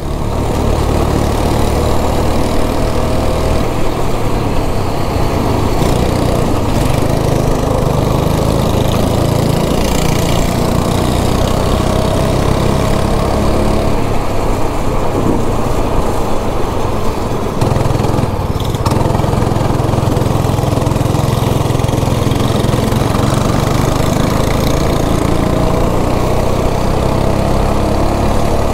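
Go-kart engine running hard, heard close up from the driver's seat. It is a steady loud drone whose pitch rises gently at times as the throttle is held through the straights.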